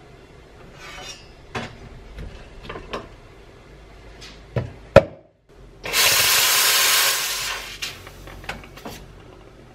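Clicks and knocks of a portafilter being taken off and handled at a La Marzocco GS3 espresso machine, with one sharp knock about five seconds in. Then a loud hiss of about a second and a half as the steam wand is purged into a cloth before steaming milk.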